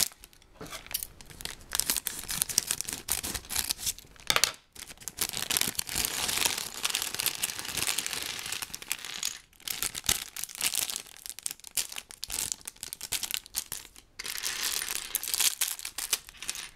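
Thin plastic LEGO polybag crinkling as it is handled and torn open, with small plastic LEGO pieces clattering out onto a table.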